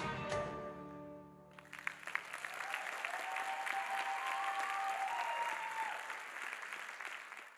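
Belly dance music ends on a held final chord that fades out. An audience then claps and cheers, and the applause cuts off abruptly at the end.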